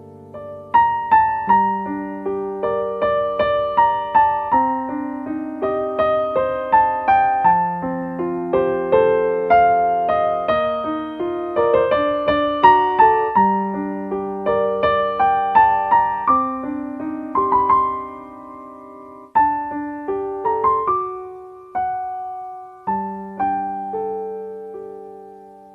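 Solo piano playing a slow, gentle melody over held low notes, each note struck and fading; the notes thin out toward the end as the piece winds down.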